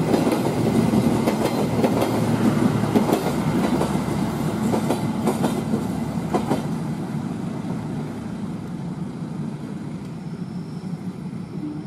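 Passenger coaches of an Indonesian KAI train running past, their wheels clicking rapidly over the rail joints. The clatter thins out after about six seconds and the sound fades as the last coach moves away.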